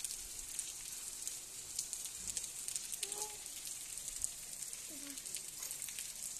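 Steady rain falling on a wet street: a high, even hiss dotted with many small drop ticks.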